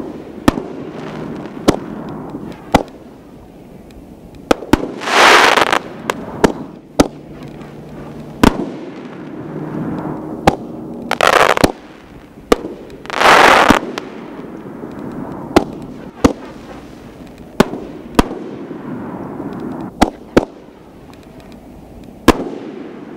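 Giant Panda 6-inch XXL canister shells firing from mortar tubes: a string of sharp bangs as the shells launch and burst, about twenty in all, unevenly spaced. Three longer hissing rushes of about a second each come about a quarter of the way in and twice just past halfway.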